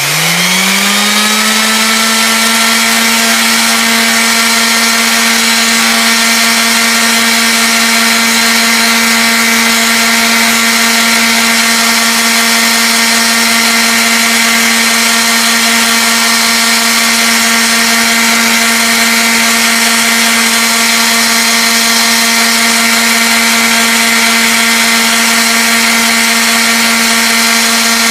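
Five-inch orbital sander running steadily at full speed while shaping a wooden letter opener: a loud, even hum with a hiss. It climbs to speed in the first second and starts to wind down right at the end.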